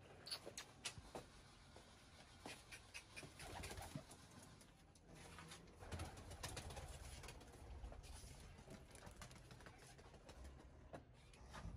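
Domestic pigeons cooing faintly, with scattered light clicks and knocks.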